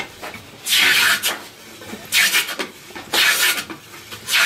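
Compass plane shaving the curved edge of a mahogany seat slat in four strokes, about one a second, each a short rasp of the blade taking off the high spots to fair the curve.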